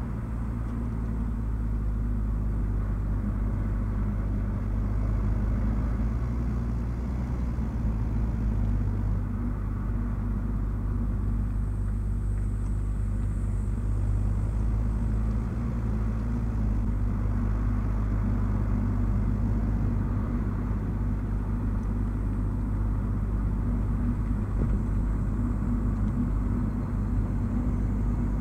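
Nissan Note e-POWER under way: a steady low rumble of road and drivetrain noise that holds evenly throughout.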